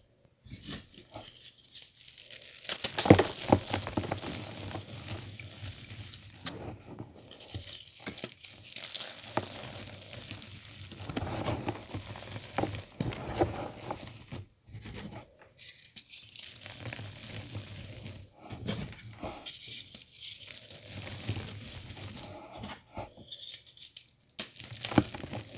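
Reformed gym chalk crumbling and crushing in bare hands, with crackling and gritty rustling as the dry powder is rubbed and dropped onto a heap of loose chalk. The loudest crunch comes about three seconds in.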